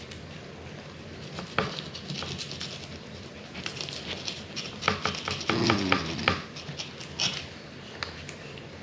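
Fillet knife cutting and scraping through the large scales and skin of a whole red porgy on a plastic cutting board: a run of short, crackly scrapes and clicks, busiest about five to six and a half seconds in. A brief pitched sound comes up among them about five and a half seconds in.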